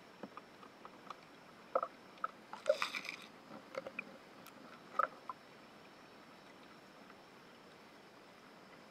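Underwater recording in a stony river: a scatter of short clicks and small knocks over a steady hiss and a faint high whine, thickest in a brief cluster around the third second, with one more sharp click near five seconds, then only the hiss.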